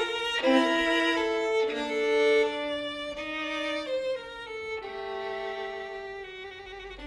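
Violin playing a slow melody of long held notes, getting softer in the middle of the phrase.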